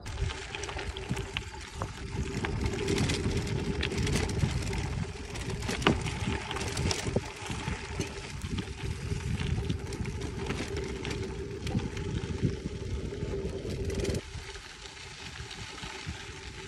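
Bicycle rolling fast down a dirt trail: tyres rumbling over the dirt with many clicks and rattles from the bike, plus a steady hum. The rumble eases about fourteen seconds in.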